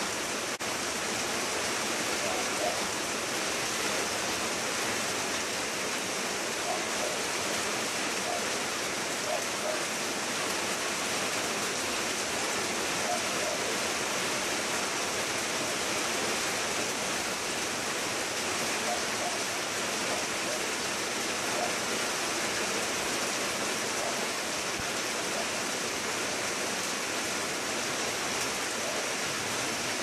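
Steady rain falling on leaves, an even hiss with no letup.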